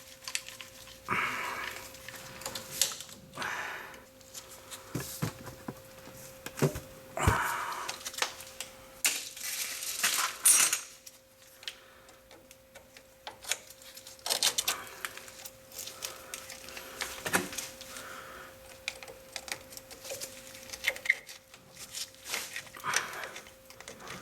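Irregular metallic clicks, knocks and scrapes as a rusty parking brake cable end is worked out of its bracket, its reverse-barb retaining clips squeezed down. A faint steady hum runs underneath.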